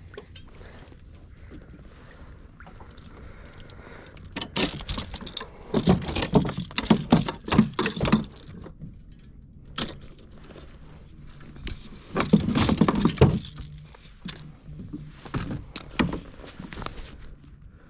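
Knocking, rattling and splashing in a kayak as a bass just hooked on a jerkbait is landed and handled, in two busy stretches: one starting about four seconds in, the other around twelve seconds in.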